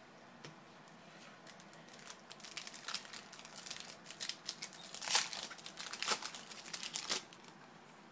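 A baseball card pack's wrapper crinkling as it is torn open by hand: a run of irregular crackles and rips building up about two seconds in, loudest about five seconds in, then stopping near the end.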